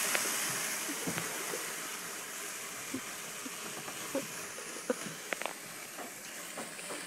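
Grease fire burning in an open gas grill: a steady hiss of flames and sizzling turkey fat, loudest at the start and dying down, with scattered crackles and clicks.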